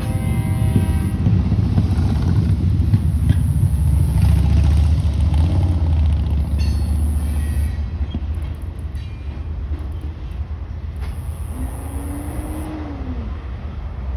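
Freight train cars rolling past: a steady low rumble of steel wheels on rail, with a few sharp clanks. The rumble is loudest in the first half and eases after about eight seconds.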